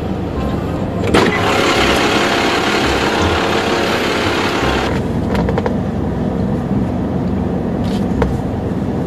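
Car cabin sound of an idling car: a steady low rumble. About a second in, a click brings roughly four seconds of loud hiss that cuts off abruptly, and there is another click near the end.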